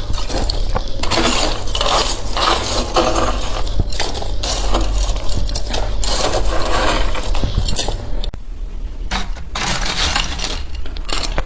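Freezer frost being scraped with a metal utensil in quick repeated strokes, with light metallic clinks. The scraping pauses briefly near the end.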